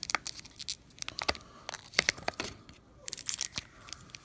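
Thin clear plastic coin bag crinkling and crackling as fingers handle it: an irregular run of many sharp little crackles.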